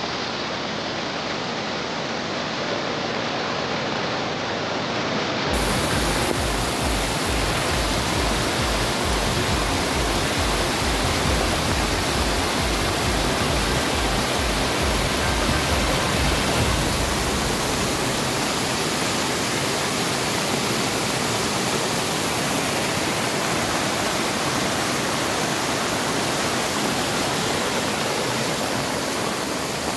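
Muddy floodwater rushing across a road in a steady, even rush of water. A low fluttering rumble joins in from about five seconds in and lasts for about twelve seconds.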